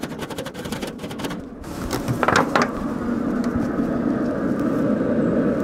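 Bristle-free grill brush scrubbing the grill grates in a run of quick scraping strokes, pausing, then a couple more strokes about two and a half seconds in; a steady rushing noise fills the rest.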